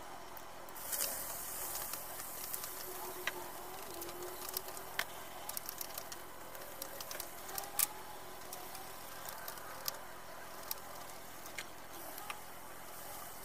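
A metal ladle scraping and knocking against a thin aluminium wok while stir-frying in hot oil, in irregular sharp clicks over a steady sizzle. The sizzle grows louder about a second in, as ingredients go into the oil.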